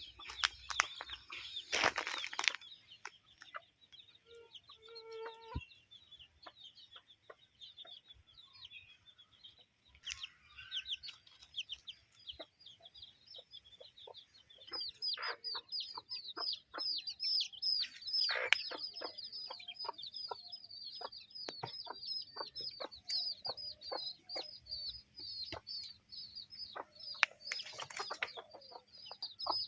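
Chickens clucking, with rapid high chirping that becomes dense from about halfway through.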